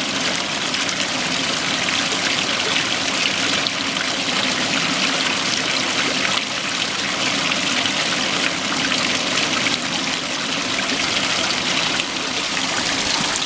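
Small creek trickling steadily over a tree root into a shallow pool.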